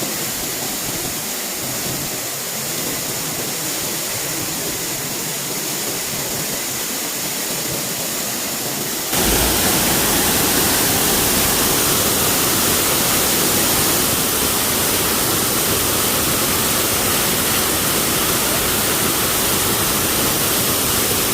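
Man-made waterfall rushing steadily. About nine seconds in, the rush suddenly gets louder and deeper.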